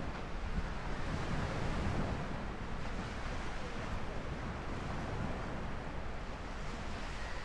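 Sea waves washing in a steady, surging wash, with wind rumbling on the microphone.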